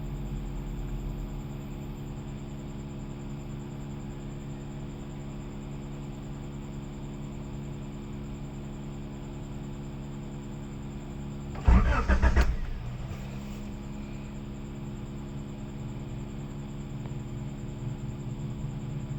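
A steady engine hum with, about twelve seconds in, one loud, roughly one-second burst of a car's starter cranking the engine. The car does not start, which fits the car not starting.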